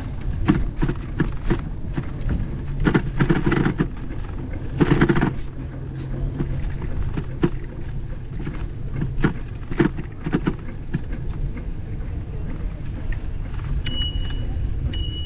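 Bicycle rolling along a paved path: a steady low rumble with frequent rattles and clicks from the bike, heaviest about three and five seconds in. A short high beep sounds twice near the end.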